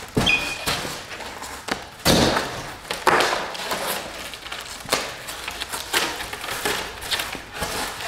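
Styrofoam packing panels scraping, rubbing and knocking as they are pulled by hand off a fridge-freezer: a string of irregular thumps and scrapes, loudest about two and three seconds in.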